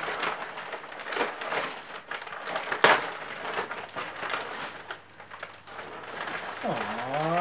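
Gift-wrapping paper rustling and crinkling in irregular bursts as a present is unwrapped by hand, with one louder crackle about three seconds in.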